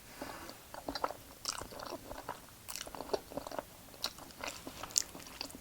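Close-miked mouth sounds of someone chewing food: irregular wet smacks and small crunches.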